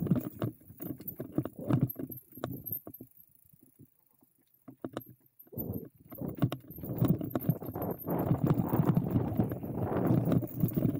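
E-mountain bike riding downhill over a rough trail: tyre rumble with a rapid run of rattling knocks and clicks from the bike. It goes almost quiet for a couple of seconds around the middle, then the rumble and rattle pick up again, louder.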